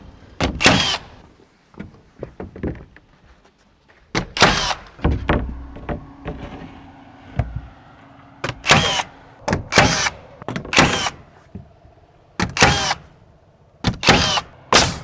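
Nail gun firing nails through OSB wall sheathing panels into the framing: about a dozen sharp shots, often in quick pairs, each with a short ringing tail.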